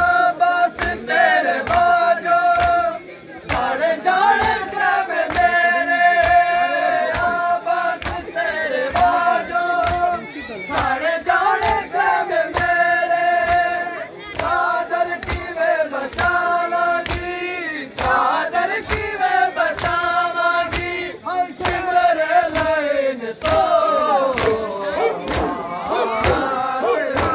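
A crowd of Shia mourners chanting a noha in unison while beating their chests (matam), the slaps landing evenly about twice a second under the sung lines.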